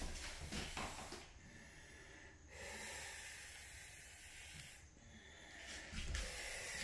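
A steady hiss that starts abruptly about two and a half seconds in and stops about two seconds later.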